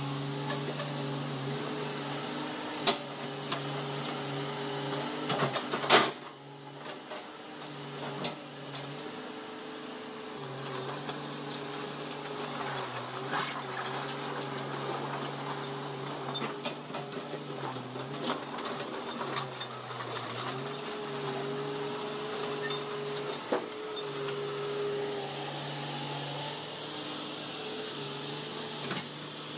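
Komatsu PC200-8MO excavator's diesel engine running steadily while the machine digs and tracks, its note dipping and recovering a few times. Occasional sharp clanks, the loudest about six seconds in.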